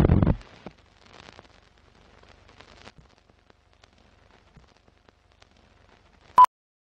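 Film-leader countdown sound effects: a loud hit at the start that dies away within half a second, faint crackling and ticks, then a single short, loud beep near the end.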